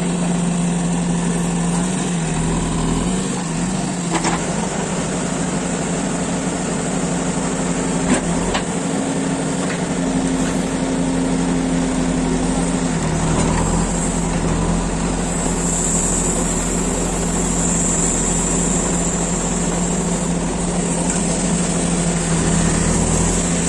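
JCB 3DX backhoe loader's diesel engine running steadily, with a short sharp knock about eight seconds in and a high steady whine joining for several seconds past the middle.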